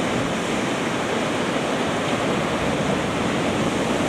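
Ocean surf breaking and churning against black volcanic rocks: a steady, loud rushing of white water with no let-up.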